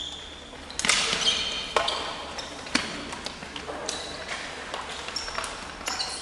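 Ball hockey play on a gym floor: about five sharp clacks of sticks striking the ball and floor, roughly a second apart, with short high sneaker squeaks between them, all echoing in a gymnasium.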